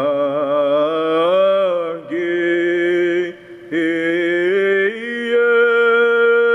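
Solo male voice singing Byzantine chant unaccompanied, holding long drawn-out notes that slide and step between pitches. He pauses briefly for breath about three seconds in, then takes up a long steady note.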